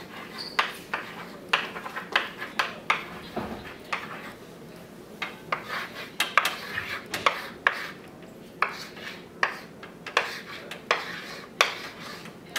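Chalk writing on a chalkboard: an irregular run of sharp taps and short scratches as the letters are stroked on, about two or three a second.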